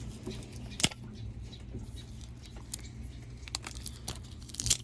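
Screwdriver tip picking and scraping at tape stuck over the bolt of a new dryer idler pulley: scattered small clicks, with a sharp click about a second in and a quick cluster of clicks near the end.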